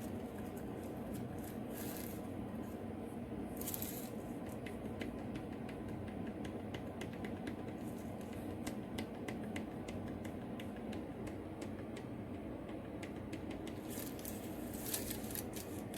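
Worn, rusted strut top-mount bearing from a Volvo XC90's front suspension being handled and worked by hand. A run of faint, light, irregular clicks, with a few brief scrapes near the start and end. The bearing is worn out and loose, and was knocking while driving.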